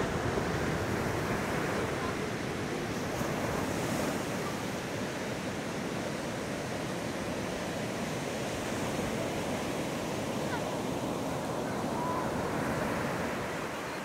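Surf breaking and washing up a sandy beach: a steady wash of foaming sea water, easing off near the end.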